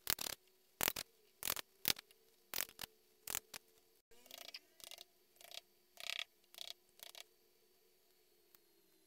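A series of short, sharp clicks and knocks, about two a second, a few with a brief metallic ring: small cast aluminium letters being handled and lifted out of casting sand.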